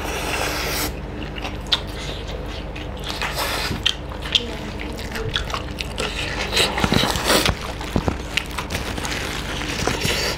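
Two people eating chicken curry and rice with their hands close to the microphone: wet chewing and biting, with many short irregular clicks and crunches.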